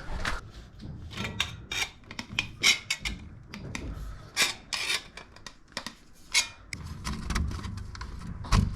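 Irregular scraping, rubbing and knocking of tools and fittings being handled, with a heavier thump near the end.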